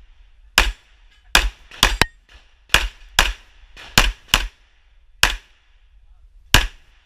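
Pistol shots, about ten sharp reports in seven seconds, irregularly spaced, several fired as quick pairs.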